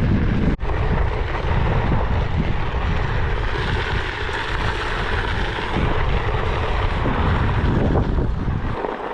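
Steady rumble of wind on the microphone and a Onewheel GT's tyre rolling over a dirt trail, with a brief dropout about half a second in.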